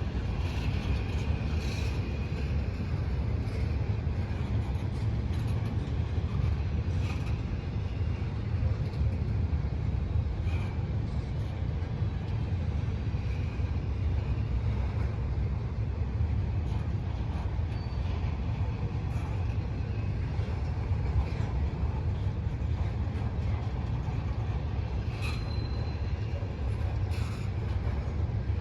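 Freight train cars rolling past on the rails: a steady low rumble of wheels, with scattered clicks and a brief high wheel squeal near the end.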